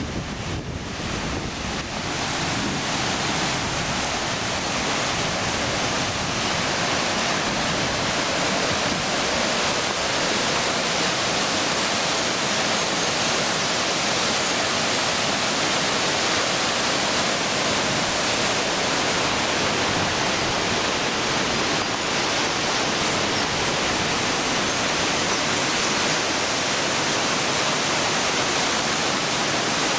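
Tanur Waterfall on the Ayun stream: falling water rushing in a steady, even hiss that grows a little louder over the first few seconds and then holds.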